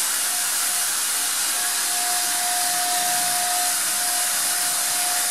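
Electric handheld paint sprayer running and spraying paint: a steady high whine from its motor over a loud, even hiss of air and paint mist.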